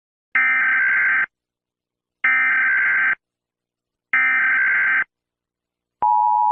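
Emergency Alert System SAME header: three identical bursts of shrill, screechy digital data tones, each just under a second long and about two seconds apart. About six seconds in, the steady two-tone EAS attention signal starts.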